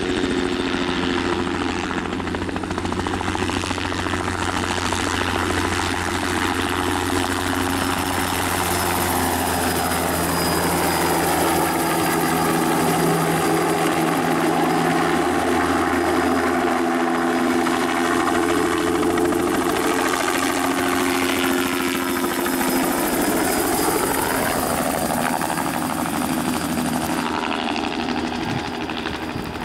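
Bell 206 JetRanger helicopter flying low with its two-bladed main rotor and turboshaft turbine running, making a spraying pass and flying overhead. Its pitch sweeps and bends as it passes over, and it grows duller near the end as it moves away.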